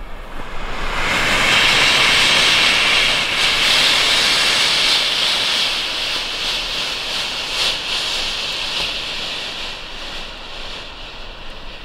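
Pull-ignited smoke cartridge hissing hard as it jets out dense white smoke. The hiss swells about a second in and slowly dies away toward the end.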